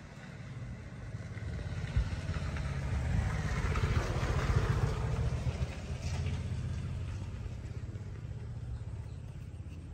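A motor vehicle passing by, growing louder to a peak about four seconds in and then fading, over a steady low rumble.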